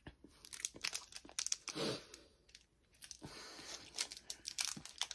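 Plastic candy-bar wrapper crinkling and being torn open: a run of short crackles and rips, with a brief hum of a voice about two seconds in.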